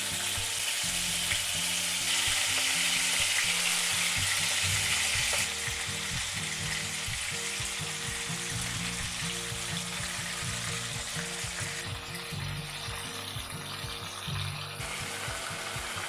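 Marinated prawns shallow-frying in hot oil in a kadhai, a steady sizzle. It grows louder about two seconds in and eases back a little after about five seconds.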